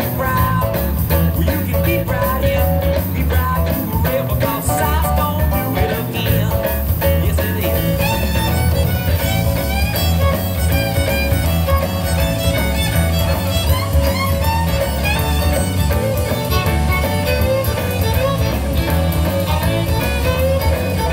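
Recorded music with fiddle and guitar over a steady bass beat, playing as the soundtrack of an animatronic monkey band.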